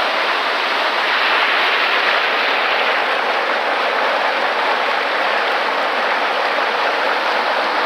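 Loud, steady rush of water pouring down a fish ladder and over rocks.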